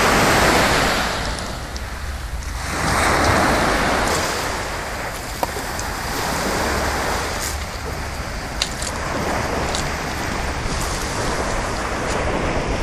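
Small Mediterranean waves breaking and washing up on a pebble-and-sand shore, the surf swelling about three times, a few seconds apart. A steady low rumble of wind on the microphone lies underneath.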